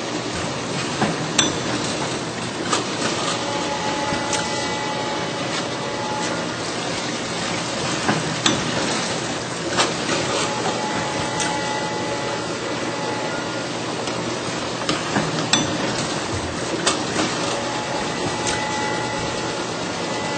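All-Fill Model 1545 piston filling machine running as it fills a row of plastic bottles: a steady mechanical noise with sharp clacks and knocks every second or two, and a faint held tone that comes back for a second or two about every seven seconds.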